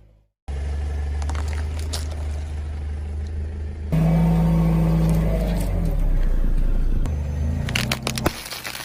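Car engine running low and steady, growing louder about four seconds in. Near the end come crackling and a sharp crunch as the tyre rolls over an object and crushes it.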